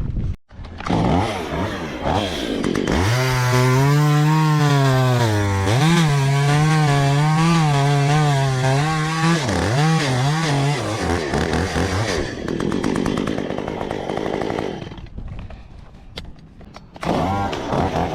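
Two-stroke chainsaw running and revving hard, its engine note wavering in pitch for several seconds as it saws wood, then easing off and picking up again near the end.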